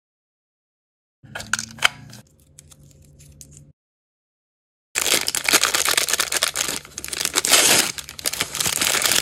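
A tiny plastic toy accessory handled in the fingers, with a few clicks and one sharp snap; then, from about five seconds in, the crinkly paper wrapping around an L.O.L. Surprise mini doll pulled and torn open, a loud, dense crackling.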